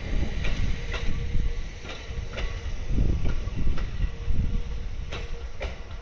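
JR East 701-series electric train running on the tracks: a low rumble with its wheels knocking over rail joints and points at irregular intervals, about nine times.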